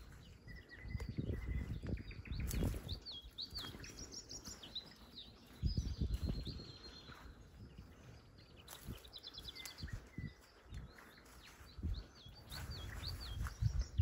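Several songbirds singing in riverside reeds and trees: a busy mix of repeated short whistled notes, a few quick trills and one held note. Bursts of low rumble come and go underneath.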